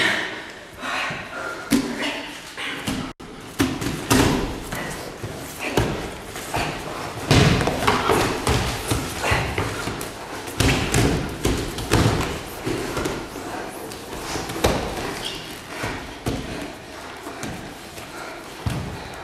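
Irregular thuds and scuffling of two grapplers' bodies, hands and knees striking and sliding on padded gym mats as they scramble for position.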